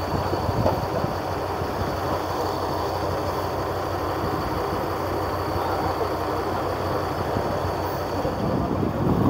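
Engine of a purse-seine fishing boat running steadily, heard from on board: a constant low drone with a faint steady high whine above it.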